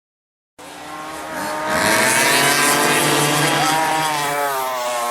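Small go-kart engine running at high revs, starting abruptly, swelling to full loudness over about a second and then slowly fading, its pitch wavering throughout.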